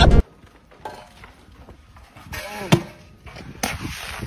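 A few sharp knocks and thuds, the loudest about two and a half seconds in, with a short cry just before it.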